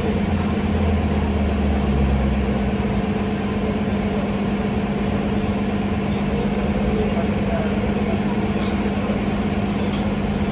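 Transit bus idling with a steady low hum, with some added low rumble during the first few seconds.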